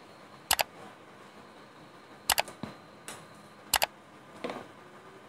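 Computer mouse-click sound effects: three sharp double clicks about a second and a half apart, with a few fainter ticks in between.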